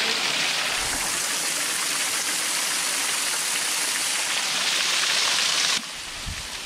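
Waterfall rushing: a steady hiss of falling water that drops suddenly to a quieter level near the end.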